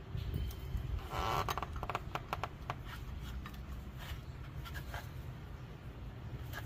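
Rubber serpentine belt scraping and clicking as gloved hands work it over the engine's pulleys. A short scrape about a second in is followed by a run of sharp clicks, over a steady low rumble.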